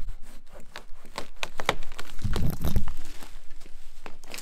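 Sawn-through dead tree trunk cracking and splintering as it gives way: a run of sharp cracks and tearing wood fibres, with a heavier low sound about halfway through.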